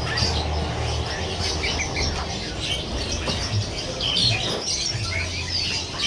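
Many caged songbirds chirping and calling over one another, short overlapping chirps and trills. A low hum comes and goes underneath.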